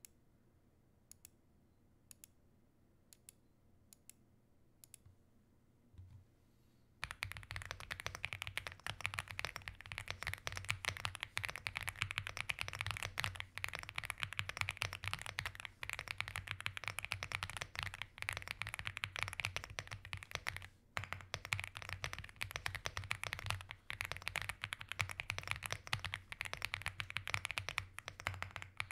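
Aula F75 mechanical keyboard being typed on: a few single, spaced keystrokes for the first several seconds, then continuous fast typing starting about seven seconds in, with one brief pause about two-thirds of the way through.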